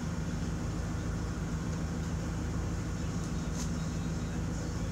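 A steady, low mechanical hum at a constant pitch, like a motor or engine running without change.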